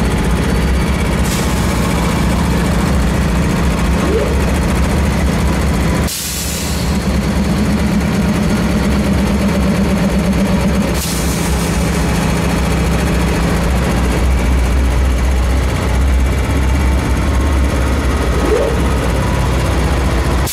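Diesel locomotive engines running with a steady low throb. The sound breaks off abruptly about six seconds in and shifts again near eleven seconds.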